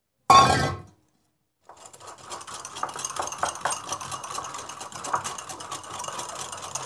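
Wire whisk beating a thin mayonnaise dressing in a glass bowl: a steady run of quick clicks and scraping from the metal wires against the glass, starting about two seconds in. A short loud clatter comes just before it, near the start.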